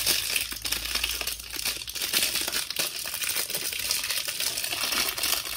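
Small clear plastic packet crinkling and rustling as it is handled and pulled open by hand.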